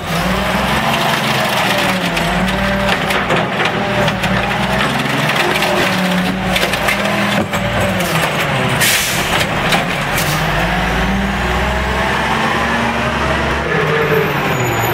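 Amrep automated side-loader garbage truck working its arm: the engine revs up and down in slow swells to drive the hydraulics as a recycling cart is lifted, tipped into the hopper and set back down, with a few sharp bangs of the cart and arm, the loudest about nine seconds in.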